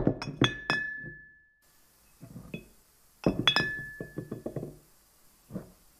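Intro of a pop song: a short phrase of bright, clinking struck notes, one of them ringing on, with softer lower notes under it. The phrase is played twice, about three seconds apart.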